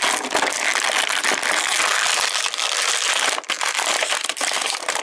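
Plastic toy packaging crinkling and crackling continuously as an action figure is worked free of its packaging.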